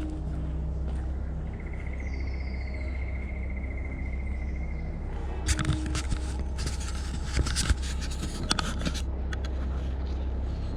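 Branches and dead wood scraping and crackling for a few seconds from about halfway, with sharp snaps among them, as someone clambers through a creek log jam. A thin, high trill sounds earlier.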